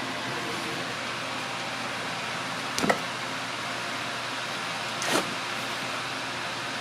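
Steady background hum with two short knocks, about two seconds apart, from hand work at the differential drain plug.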